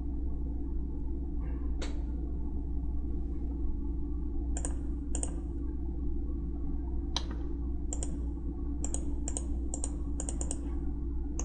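Computer keyboard keystrokes: about ten sharp, separate clicks, a few spaced out at first and then a quicker run near the end, over a steady low hum.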